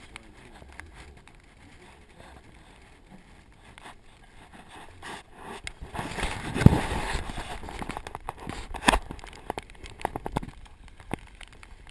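Handling noise: the microphone rubs and knocks against clothing, loudest about six seconds in, with scattered sharp clicks and a knock near the end.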